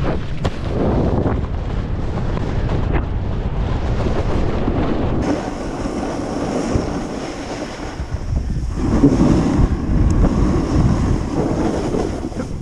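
Wind rushing over the microphone of a rider-worn camera while a snowboard slides over packed snow, the board's edge scraping louder in uneven surges, strongest about three-quarters of the way through.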